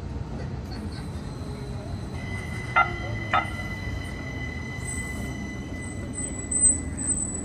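Tacoma Link light rail streetcar running, with a steady rumble and a high-pitched whine that sets in about two seconds in. Two sharp strikes come a little over half a second apart about three seconds in, and a thinner, higher squeal starts near the end.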